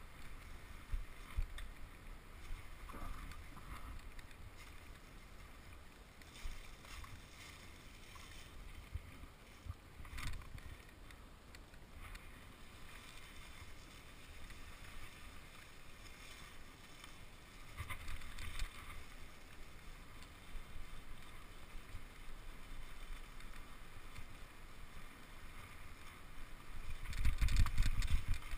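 Wind rumble and irregular knocks on the microphone of an action camera moving along a leaf-covered trail, with a louder buffeting gust near the end.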